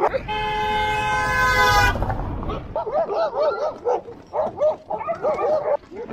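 A vehicle horn sounds one steady held note for about two seconds, then a pack of dogs barks over and over.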